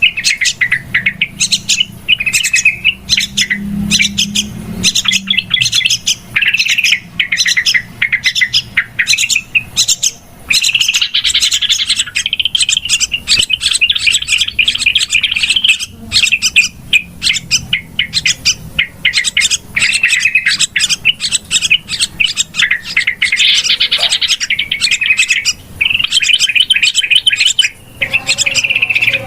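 Yellow-vented bulbuls giving rapid, noisy chattering calls: dense, overlapping high chirps with no break, the busy 'ribut' chatter used as a lure call for the species.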